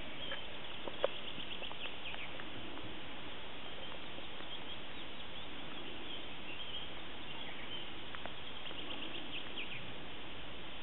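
Outdoor field ambience: a steady background hiss with small birds chirping in quick high trills, once early on and again near the end. A single short click stands out about a second in.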